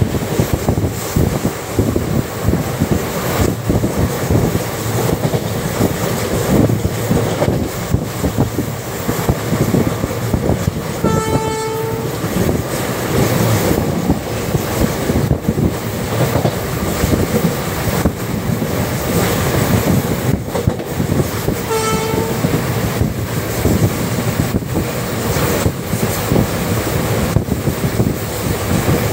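Steady rumble and rattle of an Indian Railways passenger coach running at speed on the rails, heard from its open doorway with wind on the microphone. A train horn sounds two short blasts, one a little over a third of the way in and one about three quarters through.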